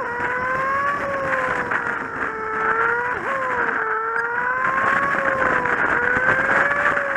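Kawasaki Z750's inline-four engine running under way. Its pitch rises and falls gently, with a brief sharp dip about three seconds in.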